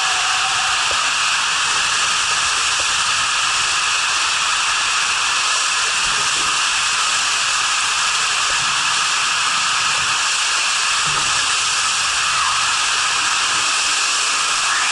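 Steady, loud rush of flowing water on a water slide, an even hiss with no breaks.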